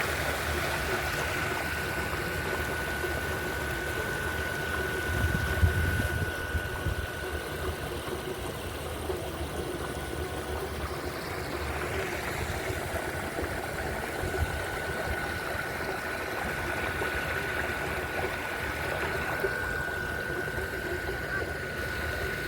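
Steady rushing noise like flowing water, with a thin, steady high-pitched tone that drops out for several seconds midway and then returns.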